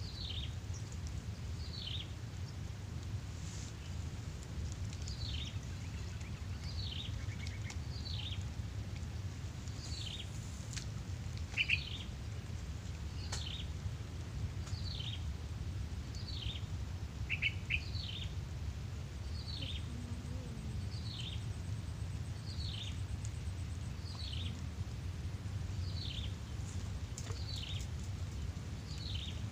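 A bird calling over and over, a short falling chirp about once a second, with a couple of louder, lower chirps in the middle; a steady low rumble runs underneath.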